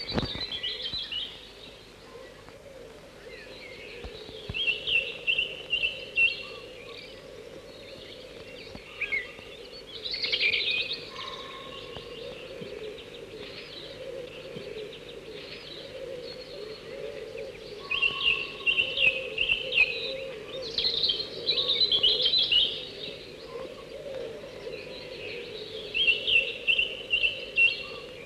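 Chickadee calling: about six short runs of quick repeated notes, coming every few seconds.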